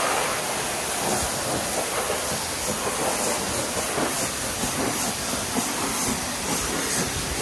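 Pressure washer wand spraying a high-pressure water jet onto window frames and glass: a steady, loud hiss of spray.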